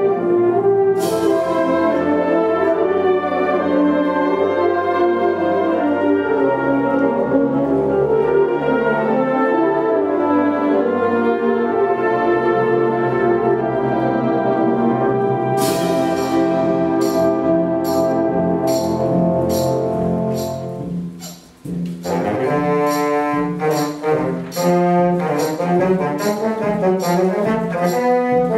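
Symphonic wind band playing, with held chords and a cymbal crash about a second in. Past the middle a second crash starts a run of evenly spaced percussion strokes. The music briefly drops away, then comes back in short, rhythmic chords.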